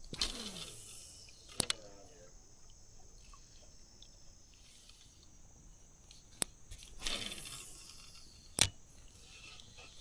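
Fishing casts: twice a short swish of line running off the reel, each followed within a second or two by sharp clicks, typical of a spinning reel's bail snapping shut. The loudest click comes near the end.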